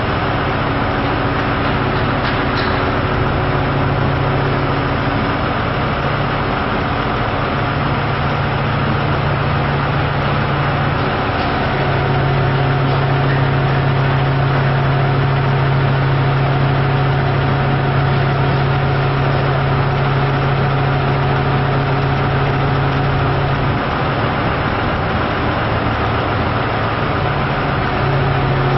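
An engine idling steadily, a constant low hum that dips out briefly a few times.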